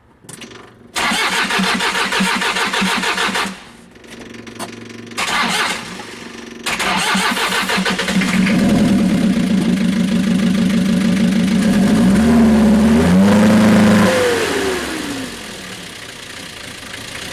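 Diesel van engine cranked by the starter twice before it catches about seven seconds in, then running at high revs. The revs rise and fall again between about twelve and fourteen seconds in, and the engine keeps running as a block of wood is held over its air intake, which does not seal well enough to stall it.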